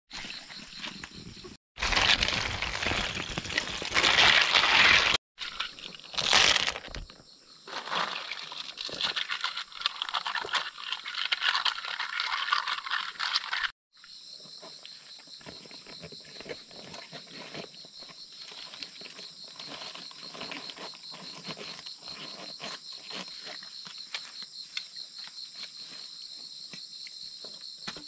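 Loud rustling and crumpling of large leaves and undergrowth in several stretches as snails are handled and wrapped in a leaf. In the second half, a steady high chirring of insects with faint rustles.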